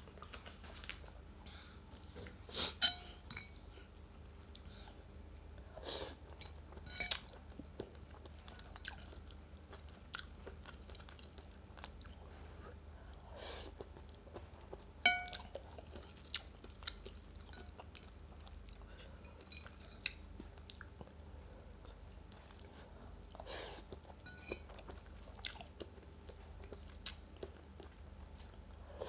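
Close-miked chewing of rice vermicelli noodle soup, soft and intermittent. A few sharp clinks of cutlery against a bowl ring out, the loudest about halfway through.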